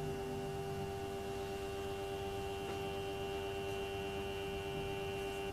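Casio SE-G1 cash register's built-in thermal printer printing the Z closing report, a steady whir with a strong even tone and several higher tones as the receipt feeds out, cutting off suddenly near the end.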